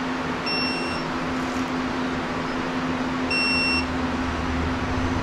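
Digital torque wrench beeping twice, each beep about half a second long and about three seconds apart, each one signalling that an oil pan bolt has reached its set torque. A steady low hum runs underneath.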